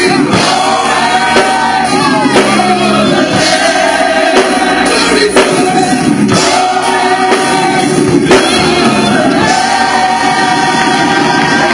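Live gospel choir singing with band accompaniment, many voices together over drums, with a strong drum hit about once a second.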